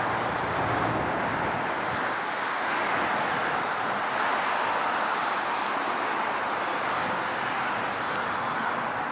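Steady hiss of distant road traffic, an even wash of tyre noise with no distinct vehicle or event standing out.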